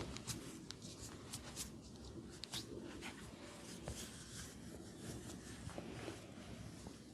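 Hands massaging a person's skin: soft rubbing and brushing, with scattered light clicks and taps.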